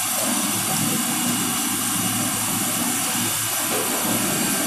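A steady rushing noise with no speech, even in level throughout.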